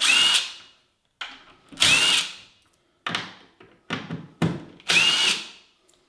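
Cordless screw gun spinning up in short bursts, a rising motor whine each time, backing small No. 10 wood screws out of a door hinge. There are three longer runs, near the start, about two seconds in and about five seconds in, with shorter blips between them.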